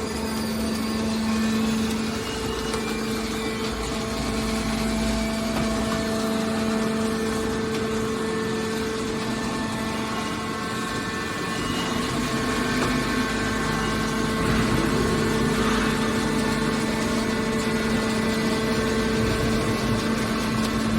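Scrap metal push-out baler's hydraulic power unit running: a steady machine hum with a constant pitch.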